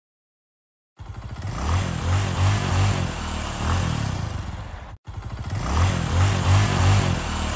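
Motorcycle engine revving up and down, about a second in. The same four-second stretch cuts off suddenly and plays again straight away.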